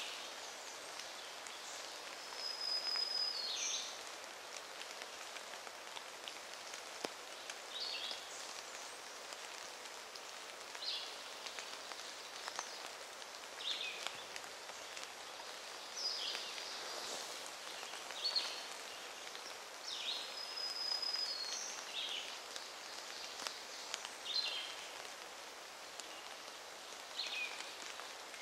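A songbird repeating short, high calls every two or three seconds, some a held whistle dropping away at the end, others quick downward slides, over a steady background hiss.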